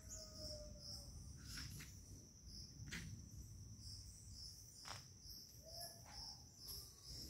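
Crickets chirping in a steady, high, pulsing trill, with a few faint clicks.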